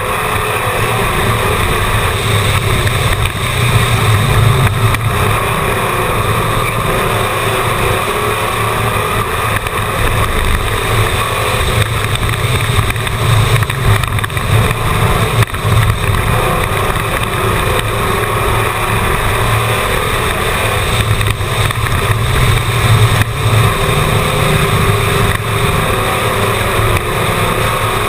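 Race car engine running at speed, recorded on board the car, with wind and road noise over the microphone. The engine note swells and eases a few times as the car goes round the track.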